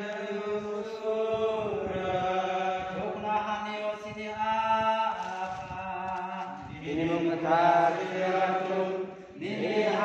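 A man chanting a liturgical prayer in long, held notes that slide from pitch to pitch, over a steady low tone beneath.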